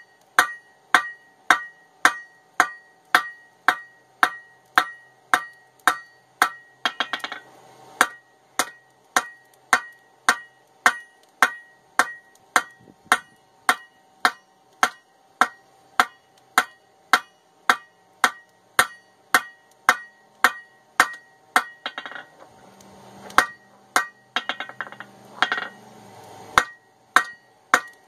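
Straight-peen hammer striking hot steel held in tongs on an anvil: a steady rhythm of about two ringing blows a second as the steel is drawn out. The rhythm breaks up briefly a few seconds before the end.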